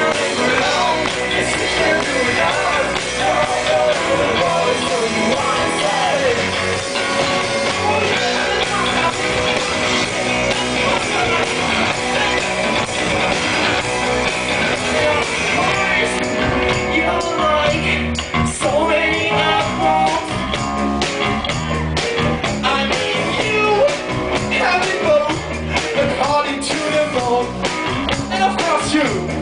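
Live rock band playing electric guitars and drums, with a male singer, heard from the audience through a camera microphone.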